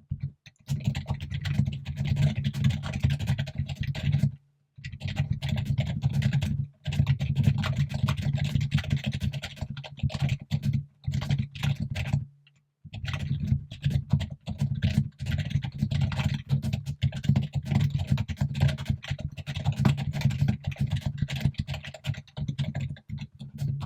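Fast, continuous typing on a computer keyboard, a rapid run of key clicks with a few brief pauses between bursts.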